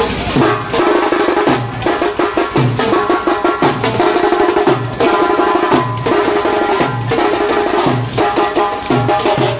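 Loud percussion-heavy music with a steady beat, its low drum hit landing about once a second.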